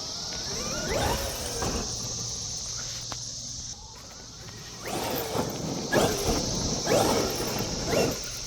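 Traxxas XRT RC truck's brushless electric motor whining up and down in pitch with bursts of throttle, once about a second in and then repeatedly from about five seconds in to near the end.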